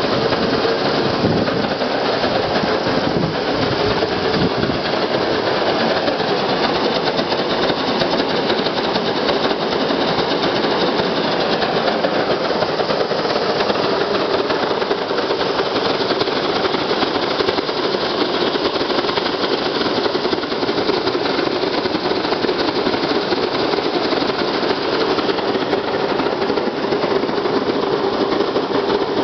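Homemade waste-vegetable-oil burners with siphon nozzles firing into a brick ceramic kiln at stoneware temperature: a loud, steady, even combustion noise with a rumbling, rattling texture that holds without change.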